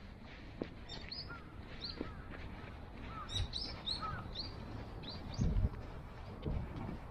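Small birds chirping, short high notes repeated over and over, with some lower chirps among them in the first half. A few low thumps come in the second half, louder than the birds.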